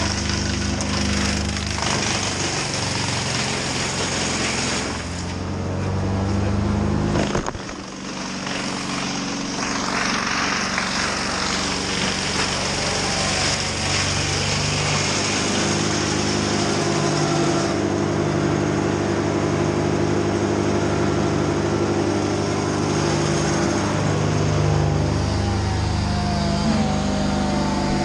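A heavy machine's engine running steadily, with a short drop in level about seven and a half seconds in.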